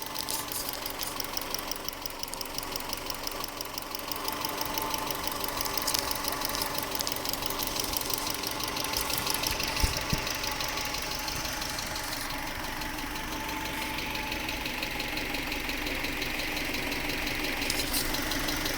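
A 1996 Subaru Legacy Outback's 2.2-litre EJ22E flat-four engine running steadily, with a rapid, even ticking over the engine sound. The owner suspects loud fuel injectors or something in the valve train.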